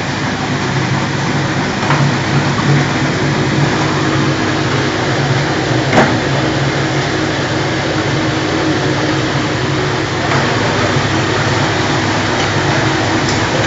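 Steady hum and whir of machinery running, with one sharp click about six seconds in.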